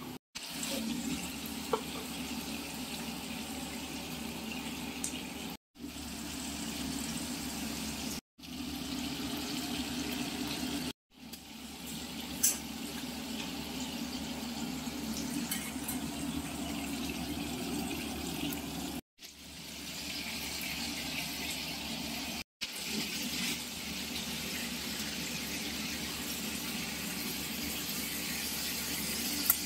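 Ground spice and onion paste sizzling in hot oil in a kadai as it is fried down. It is a steady sizzle, broken several times by brief silent dropouts.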